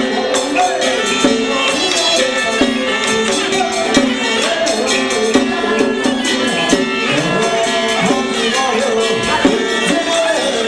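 Traditional Taiwanese Taoist ritual music: a wavering melody over fast, continuous percussion strikes.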